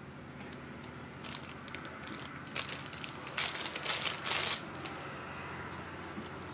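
Clear plastic zip-lock bag crinkling as it is handled and pulled open. It comes as a run of crackles that is loudest about halfway through.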